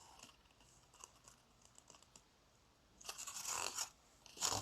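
Paper rustling and scraping as card stock panels are handled, faint at first, then a burst of rustle lasting about a second, about three seconds in, and another short one near the end.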